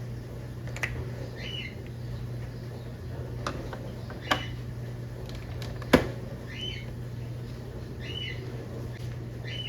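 A bird repeating a short chirp about every second and a half, over a steady low hum, with a few sharp clicks; the loudest click comes about six seconds in.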